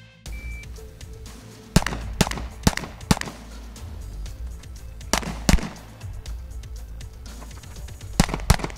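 Pistol shots fired in quick strings: four shots about half a second apart, then a pair a couple of seconds later and another pair near the end, over steady background music.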